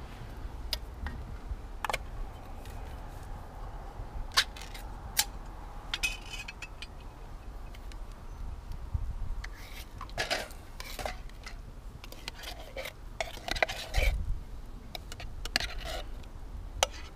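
A ring-pull tin being opened, then a metal spoon clinking and scraping against the tin and an aluminium saucepan as baked beans and sausages are spooned into the pan. The sound is scattered sharp clinks, busiest in the second half.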